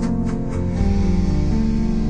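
Soft instrumental background music with sustained notes.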